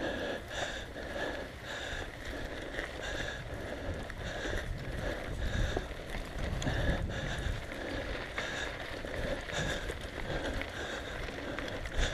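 Mountain bikes rolling over a dirt track: tyre and bike noise with wind rumbling on the microphone, and a soft hiss repeating roughly every half second.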